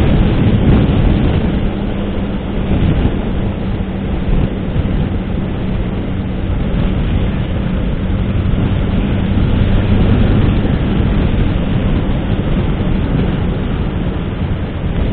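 Suzuki Hayabusa motorcycle under way: wind buffeting the microphone over a steady low engine hum at cruising speed.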